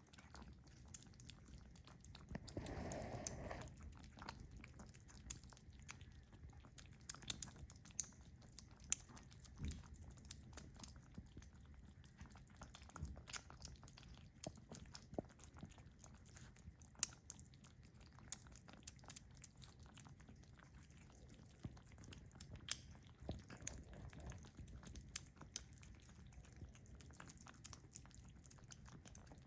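Near silence: room tone with faint scattered clicks and ticks, and a brief soft noise about three seconds in.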